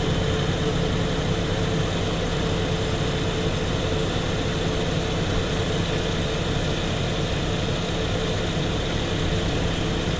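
1997 Saturn SL2 four-cylinder engine idling steadily with the AC system running while it draws refrigerant in through the low side, a constant hum with an even hiss.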